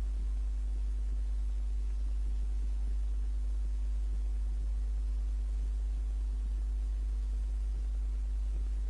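A steady low hum that holds at one level and pitch throughout, with a few fainter higher tones in it.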